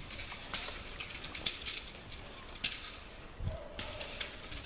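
Irregular short rustles and scuffs of a decoy's padded bite suit as a dog grips it in a ring-sport bite exercise. A brief steady tone sounds about three and a half seconds in.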